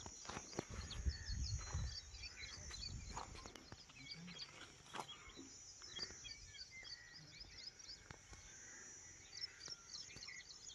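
Many small birds chirping over a steady high-pitched hiss, with low rumbling and a few sharp clicks in the first two seconds.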